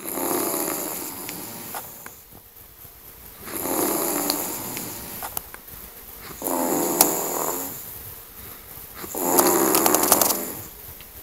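A person snoring loudly, four long rattling snores about every three seconds, with a few sharp clicks among them.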